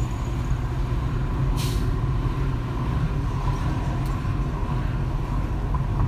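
Steady low road and engine rumble heard from inside a moving car, with one brief high hiss about one and a half seconds in.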